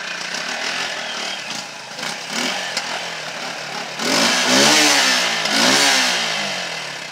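Motorcycle engine running low, then revved twice as the bike pulls away, about four and six seconds in, its pitch sweeping up and down, then fading as it moves off.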